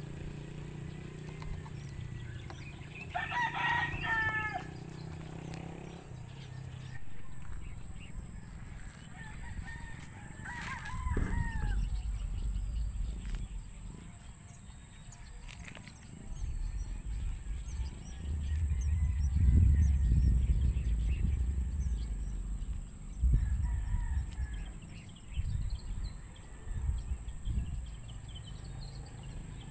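A rooster crowing twice, about three seconds in and again about ten seconds in, over low rumbling noise that swells through the second half.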